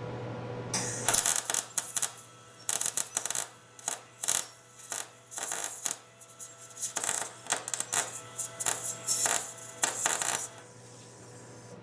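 Electric welder crackling in a long run of short, irregular bursts lasting about ten seconds, welding a nut onto the stub of a broken, rusted bolt.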